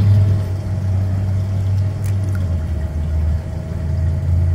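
An engine idling steadily: a continuous low hum with a thin, steady higher tone above it.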